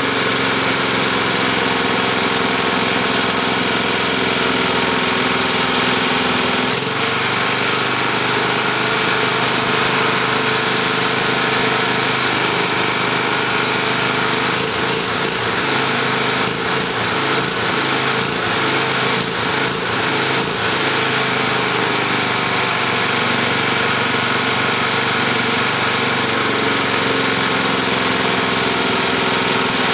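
Tecumseh vertical-shaft lawn mower engine running steadily at its governed speed. About a third of the way in its note shifts, and for several seconds in the middle its speed falls and rises again as the governor is worked by hand, before it settles back to steady running.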